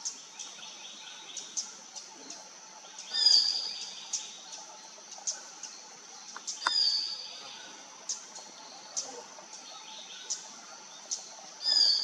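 Malabar whistling thrush giving shrill, high calls three times, a few seconds apart. Many short high chirps and a steady high background hum run under them.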